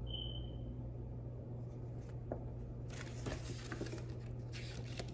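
Paper pages of a picture book being handled and turned, with rustling and crackling from about three seconds in, over a steady low hum. A brief high tone sounds right at the start.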